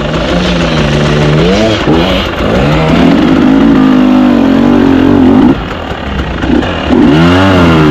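KTM 300 EXC two-stroke enduro engine revving up and down several times: one swell early, a higher held run through the middle, and a quick blip of the throttle near the end.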